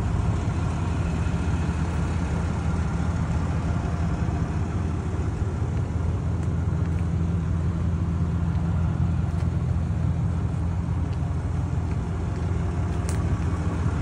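2020 Ram 2500's Cummins 6.7-litre inline-six turbo diesel idling steadily, an even low rumble.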